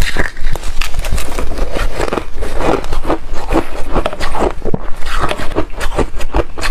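Soft re-shaved ice being bitten and chewed, a dense run of crisp crackles and crunches.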